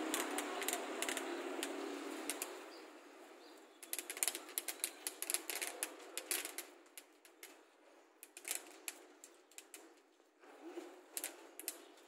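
A couple of seconds of rustling, then small hard grains dropping from a grain head onto a corrugated roof sheet, making quick, irregular clicks and ticks in two spells.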